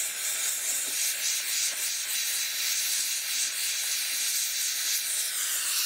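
Oxygen and MAP gas torch flame hissing steadily into a crucible of melting sterling silver.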